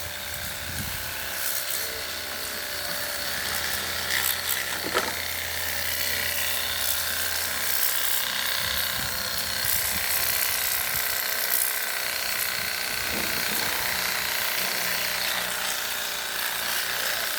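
A small battery-powered machine running steadily with a hiss, flushing a refrigerator's lines to clear out the acid. A few clicks sound along the way, and the hum shifts in pitch about halfway through.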